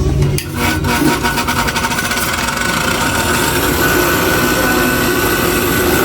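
Sewing machine clutch motor switched on for a test run, with its clutch lining freshly re-glued: it starts about half a second in with a quick clatter, then runs steadily with a whine and a low hum.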